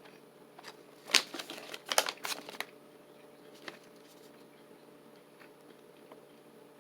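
Jerky snack packaging crinkling as it is handled: a quick cluster of sharp crackles a second or so in, then one faint crackle, over a low steady room hum.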